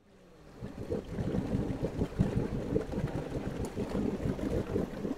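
Water rushing and splashing against the hull of a moving wooden runabout, with wind buffeting the microphone. It fades up from silence over the first second.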